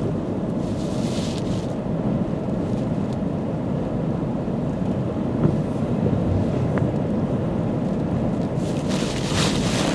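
Storm-force wind buffeting the microphone in a steady low rumble, with big waves surging in; a brighter hiss of breaking surf comes about a second in and again near the end.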